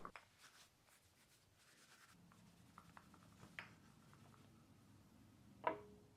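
Faint, quiet rubbing and light handling of a small hardwood ring box as a beeswax and mineral-oil finish is worked in, with a few soft ticks and one sharper click near the end.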